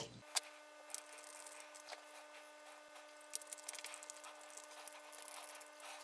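Faint, scattered clicks and light scrapes of a small screwdriver turning tiny screws into a projector's metal color wheel bracket, with the part being handled.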